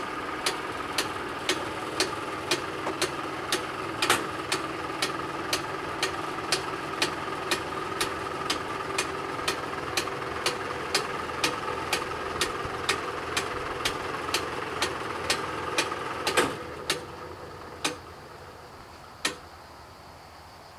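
FS 64 level-crossing barrier mechanism raising its boom: a steady motor hum with sharp ticks about twice a second. The hum cuts off about sixteen seconds in as the boom reaches the top, and two last ticks follow more slowly.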